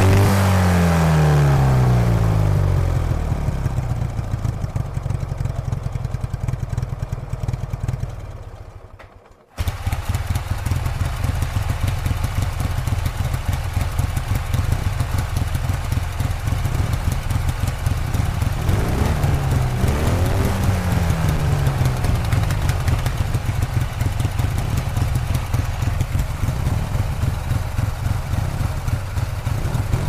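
Ural sidecar motorcycle's flat-twin engine: a falling rev that fades away about nine seconds in. After a short gap, a second recording of the engine running steadily, blipped up and back down twice around the middle.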